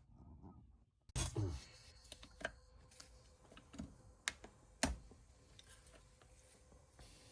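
Irregular sharp clicks and knocks, the loudest just after a second in and near the five-second mark, over a faint steady hum.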